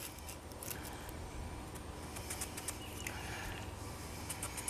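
Faint pencil scratches on particleboard as a mark is drawn along a steel ruler, a few light strokes clustering near the end, over a low steady hum.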